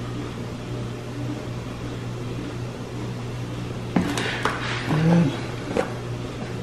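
A steady low electrical hum from a kitchen appliance; about four seconds in, a sharp knock and a short rattle as seasoning bottles are picked up from the counter and shaken, with another small knock about two seconds later.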